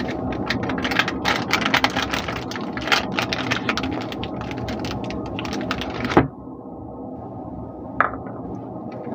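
Paper wrapper of a Lifebuoy soap bar crinkling and rustling in the hands, with fast crackles, for about six seconds. Then one sharp knock, and a single light tap near the end.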